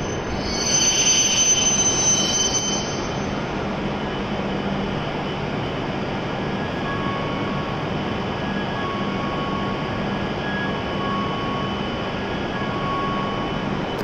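E7 series Shinkansen train standing at the platform after arrival, its equipment running with a steady hum. A high hiss fades away over the first few seconds, and a few faint short beeps come later.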